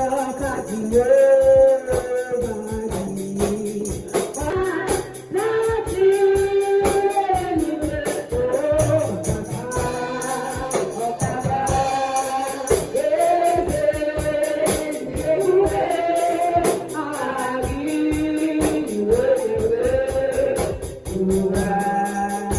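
Gospel praise music: singing over a steady tambourine and percussion beat.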